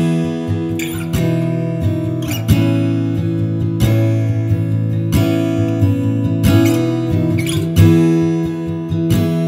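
Music: a strummed acoustic guitar playing chords.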